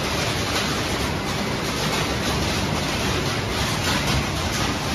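Steady, loud running noise of a waste-refrigerator shredding and sorting line: conveyors and separators running with shredded metal moving through them.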